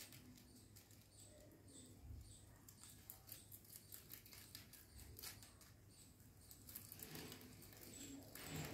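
Two rabbits chewing fresh green leaves: faint, rapid crunching clicks of nibbling, with a brief louder rustle near the end.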